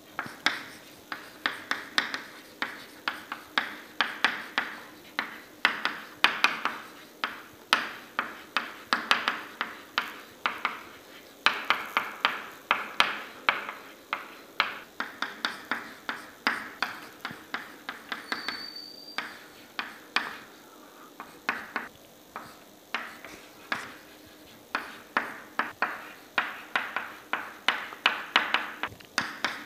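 Chalk tapping and scraping on a chalkboard during handwriting: an irregular run of sharp clicks, several a second, in bursts with short pauses between them.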